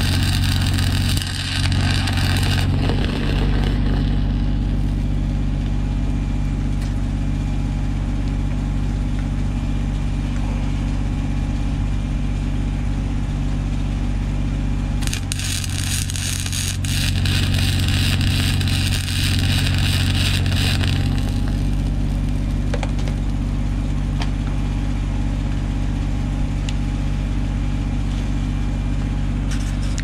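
Welding arc crackling and hissing while a nut is welded onto a sheared wheel-hub stud to heat it loose for extraction. There is a short burst at the start and a longer one of about six seconds about 15 seconds in, over a steady engine hum.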